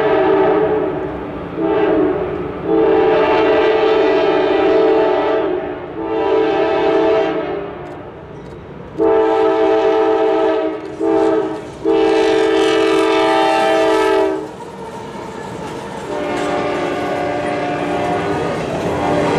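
Freight locomotive air horn, a multi-note chord, sounding repeatedly as a CSX GE AC4400CW approaches. The blasts come in long and short groups, ending about 14 seconds in with long, short, long: the grade-crossing signal. After that the engines and the double-stack intermodal cars roll past with a rumble and a wheel clatter.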